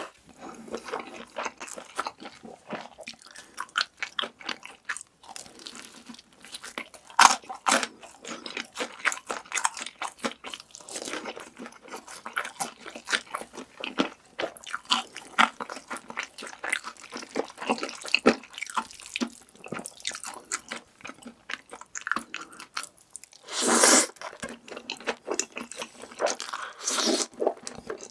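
Close-miked eating: crisp food crunching between the teeth with steady chewing and biting, many sharp crackles in quick succession. About three-quarters of the way through there is one louder, longer noisy stretch of a second or so.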